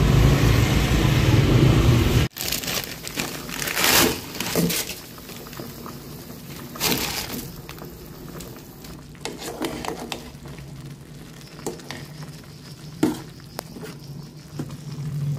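Street noise with passing traffic that cuts off about two seconds in, followed by scattered crinkling of plastic and light clinks of dishes in a small room, as food is unpacked and prepared.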